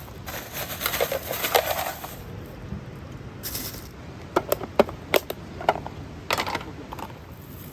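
Handling noise: rustling, then a quick run of sharp clicks and clinks of small hard objects, and another rustle near the end.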